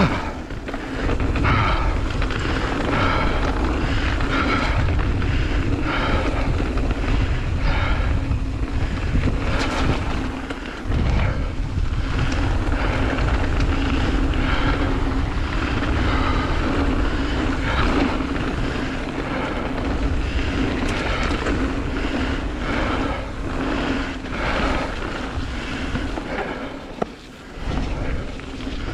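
Wind rushing over a GoPro's microphone during a fast mountain bike descent, with tyres rolling over the trail and frequent knocks and rattles from bumps. The sound dips briefly about 11 seconds in and again near the end.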